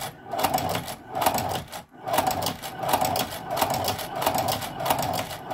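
Hand-cranked shoe patcher sewing machine stitching through 7 to 8 ounce leather. Its needle and shuttle mechanism clatters with rapid clicks, and a louder pulse comes with each stitch about every three-quarters of a second. There is a brief break about two seconds in.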